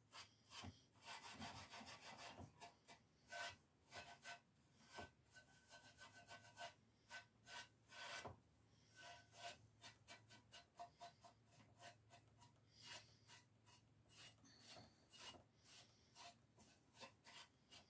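Faint, irregular scratchy strokes of very fine steel wool rubbed over gold leaf, brushing off the loose leaf and burnishing it smooth.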